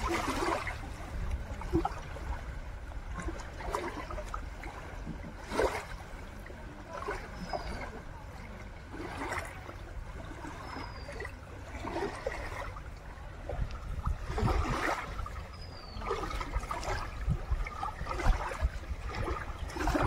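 River water lapping and trickling against the rocks at the water's edge, with scattered small splashes.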